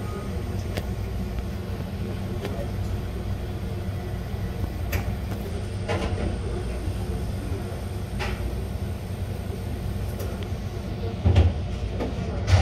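Steady low machine hum, with a few faint clicks scattered through it and a louder thud near the end.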